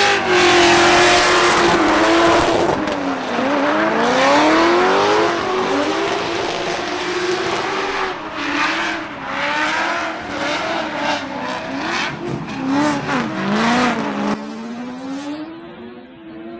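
A drift car's engine revving up and down over and over as the throttle is worked through the slides, over steady tyre screech. The sound drops off suddenly about two seconds before the end.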